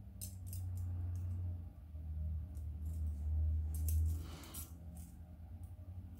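Bent-wire metal puzzle and its small chain being handled: light, scattered clicks and clinks of wire loops and chain links knocking together, over a low steady hum that stops about four seconds in.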